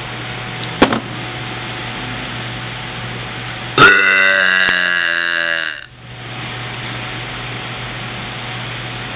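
A young woman's long, loud burp about four seconds in, lasting about two seconds and pitched with a steady tone before cutting off. A short sharp sound comes about a second in.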